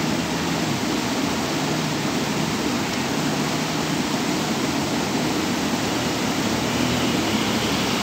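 Floodwater flowing fast across a submerged road causeway and pouring over its downstream edge, a steady, even rush of water.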